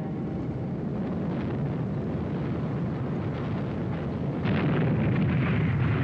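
Low, dense rumble of distant shelling and explosions, growing a little louder, with sharper cracks from about four and a half seconds in.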